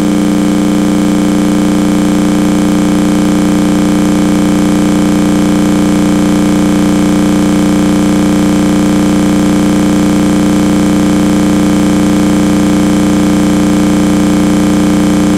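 Hair dryer running steadily, close and loud: an even blowing hum with a constant motor whine.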